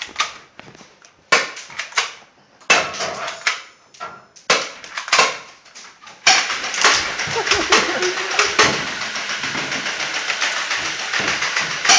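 Airsoft pistols firing: several sharp cracks a second or so apart in the first half, then, from about halfway, a continuous rough noise with scattered sharp clicks.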